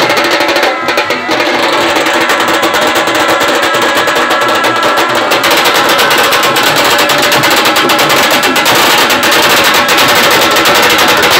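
Khalu baja band playing loud, fast, dense drumming, the traditional Konkan procession music, with a brief dip in loudness about a second in.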